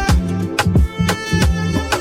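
Background music with a steady beat, a bass line and a melody, in an upbeat Afrobeat or Latin style.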